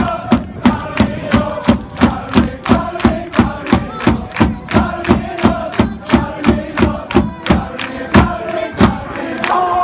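Crowd of football supporters chanting in unison to celebrate a win, over a steady beat of about three hits a second. The beat stops near the end while the singing carries on.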